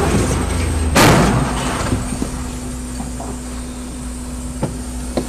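A loud crash about a second in, as a train strikes a truck at a level crossing, heard from inside a car over a steady low rumble. A couple of faint knocks follow near the end.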